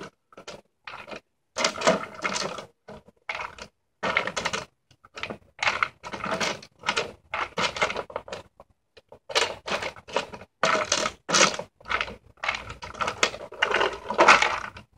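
Empty plastic drink bottles strung on a wire clattering and rattling as a dog noses and spins them, with the dry treats inside rattling. It comes in irregular bursts, some brief and others lasting a second or more.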